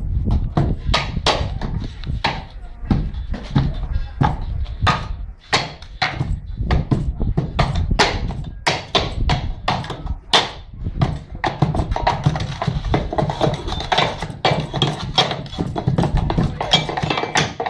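Steel tamping rods ramming wet cement down into a steel ring mould, giving many sharp knocks at an uneven pace, about one or two a second, as the rods strike the mould and compact the mix.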